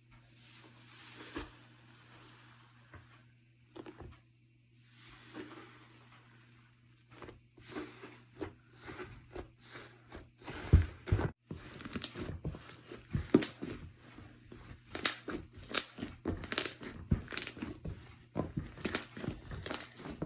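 Iceberg slime crinkling and crackling as its hardened top layer is pressed and squeezed. A steady crinkle gives way, about seven seconds in, to rapid sharp crackles and pops.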